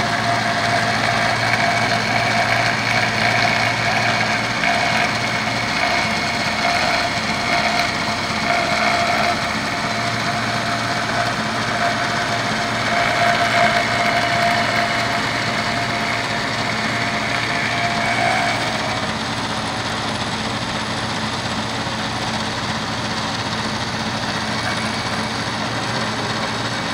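CNC milling machine running with an end mill cutting a pocket in a metal plate: a steady whine over the machine's hum. The cutting whine fades out about two-thirds of the way through while the machine keeps running.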